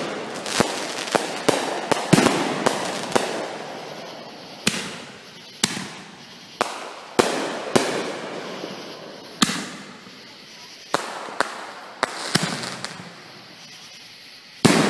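Aerial fireworks bursting: sharp bangs, each trailing off in an echo. They come in a quick run over the first few seconds, then one every second or so.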